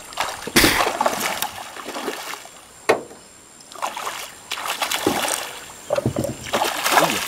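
A hooked traíra (wolf fish) thrashing and splashing at the water's surface in irregular bursts, with one sharp knock about three seconds in.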